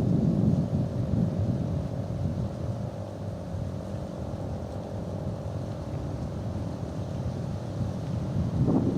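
Federal Signal 2T22 two-tone rotating outdoor warning siren sounding its steady two-note chord. It fades in the middle and swells again near the end as it turns, over wind rumbling on the microphone.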